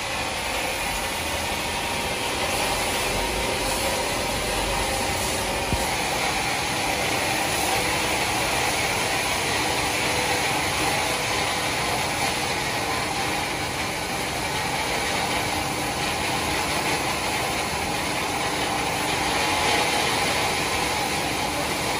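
Large horizontal band sawmill running steadily as its blade cuts a slab lengthwise off a huge log.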